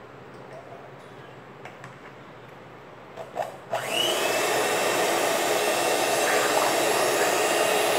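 Electric hand mixer switched on about halfway through, after a couple of clicks, its motor running steadily as the beaters whisk homemade bar soap batter of oil, lye and lemon vinegar to bring it to trace.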